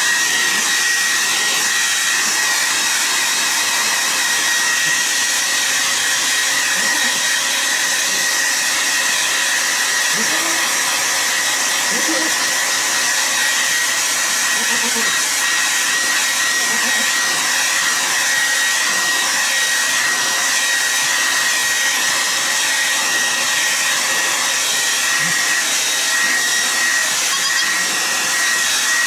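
Handheld hair dryer running continuously, a steady rush of air with a thin high whine from its motor, drying a baby goat's coat.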